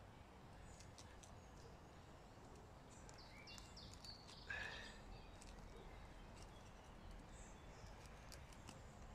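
Quiet outdoor ambience with a low steady hiss, broken by a few short bird chirps and one brief louder call about four and a half seconds in.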